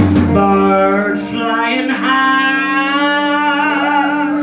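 A woman singing long held notes into a microphone over a steady sustained low tone from the band. Drum and cymbal hits stop just after the start.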